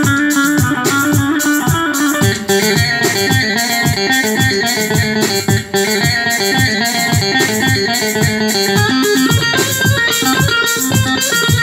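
Yamaha arranger keyboard playing a Turkish buzuq (plucked bağlama) voice: a quick plucked-string melody over a steady rhythm.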